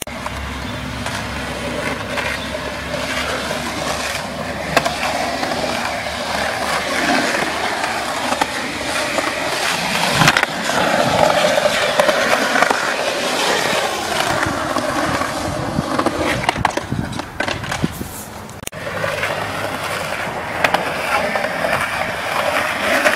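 Skateboard wheels rolling on concrete, with occasional sharp clacks of the board striking the ground.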